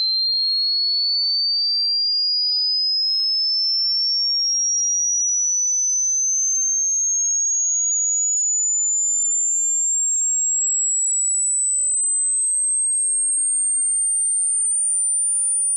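A single pure sine test tone rising slowly and evenly in pitch, from a high whistle to a very high, thin one, at a steady level. This is a hearing-test frequency sweep: hearing it all the way to the top is taken as normal hearing.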